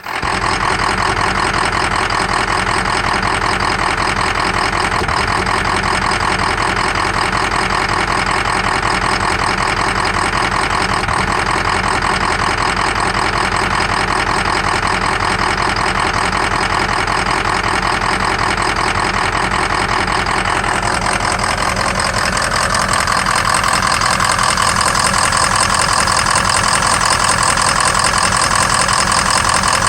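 Ford 6.0 Power Stroke V8 turbo-diesel idling steadily, with an intermittent misfire that the owner puts down to a faulty #5 injector showing low voltage and low cylinder contribution. About two-thirds of the way through, the sound turns slightly louder and brighter.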